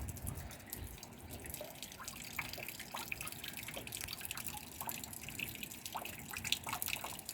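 Rainwater dripping and pattering in many small irregular drops over a light drizzle, just after a short heavy downpour has passed.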